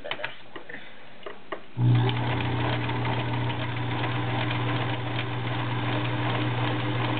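All-metal Kenmore Model 1703 sewing machine starting up about two seconds in and running steadily, sewing its built-in stretch stitch that works the fabric forward and back. A few light clicks come before it starts.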